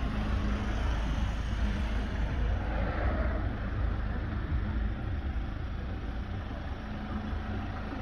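Ford S-Max's 2.0 TDCi EcoBlue four-cylinder diesel idling steadily, a low rumble with a faint even hum.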